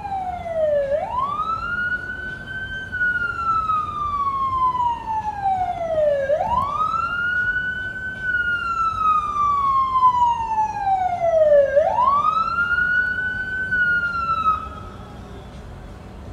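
Fire engine siren wailing in three slow cycles, each a quick rise in pitch followed by a long fall, then cut off abruptly near the end.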